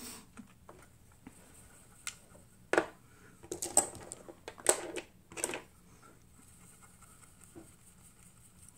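A handful of short clicks and taps, spread from about two to five seconds in, as makeup products and brushes are picked up and set down on a table.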